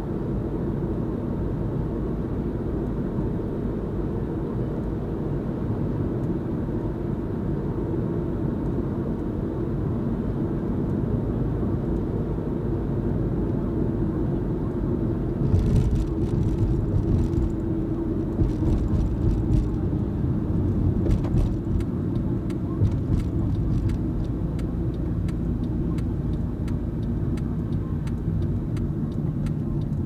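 Car driving, heard from inside the cabin: steady engine and tyre rumble on the road. About halfway through, as the car passes under an overpass, the rumble gets louder and is joined by scattered clicks and knocks.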